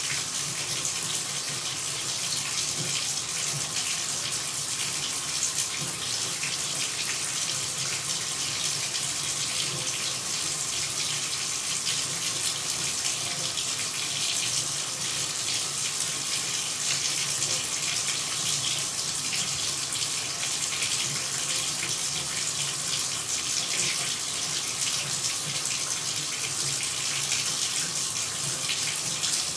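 Running water pouring steadily, an even, unbroken hiss with no change in level.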